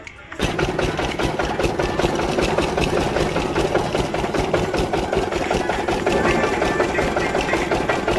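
A small engine running steadily at close range with a fast, even chugging, starting abruptly about half a second in.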